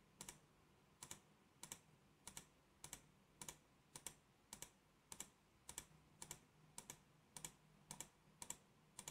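Faint computer mouse clicks, evenly spaced at just under two a second, each a quick press-and-release double tick.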